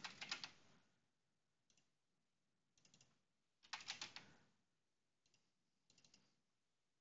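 Faint computer keyboard typing and clicking: a quick run of keystrokes about halfway through, with scattered single clicks before and after it.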